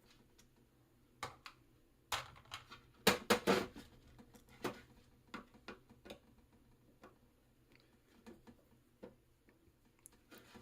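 Scattered clicks and knocks of a screwdriver and small parts against a plastic gearbox housing while the motor mounting screws are worked loose. The loudest knocks come in a quick cluster about three seconds in.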